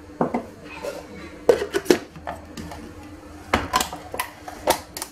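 Sharp plastic clicks and knocks, about ten spread through, as a countertop blender's jar and lid are handled and fitted onto the motor base.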